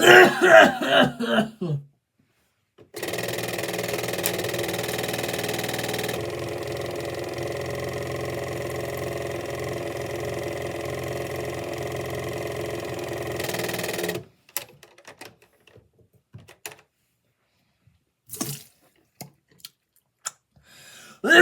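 Bathroom sink tap running steadily for about eleven seconds, then turned off; a few faint clicks and knocks follow.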